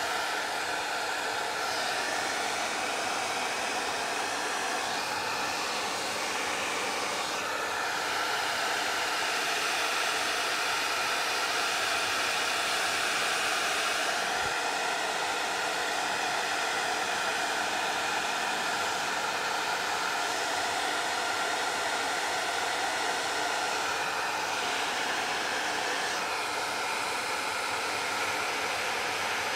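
Hot Tools hair dryer running steadily, a rush of air with a faint hum in it, its sound shifting a little a few times as it is moved over the canvas.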